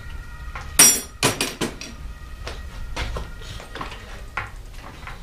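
Metal hand tools being handled in a bike workshop: one sharp clank about a second in, followed by a quick run of lighter metallic clicks and, later, scattered quieter taps.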